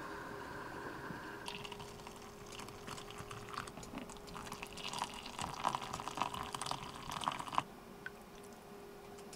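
Hot coffee poured from a pot into two small camping cups: a splashing, trickling pour that starts about a second and a half in and stops abruptly near the end, over a steady low hum.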